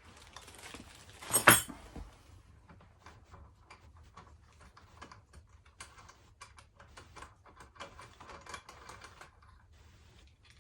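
Hands handling bike parts and packaging during assembly: many small scattered clicks and taps, with one loud clack about a second and a half in.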